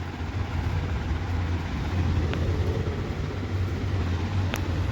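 Steady low electrical or mechanical hum, with two faint clicks about two seconds apart.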